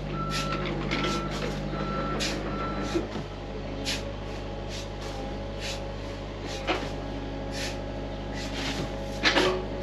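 Backup alarm on heavy equipment beeping at a steady pace, about one and a half beeps a second, stopping about three seconds in, over an engine running steadily.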